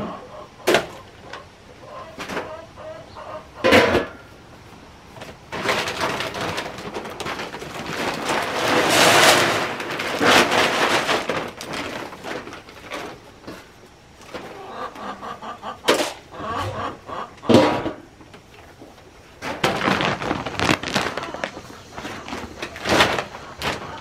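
Dry feed poured from a sack into a galvanized metal can: a rushing rattle lasting several seconds in the middle. Metal can lids clank sharply several times, near the start and again later.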